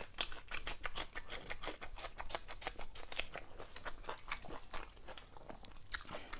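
Close-miked chewing with lips closed: a dense run of quick wet smacking and clicking mouth sounds, thinning out near the end.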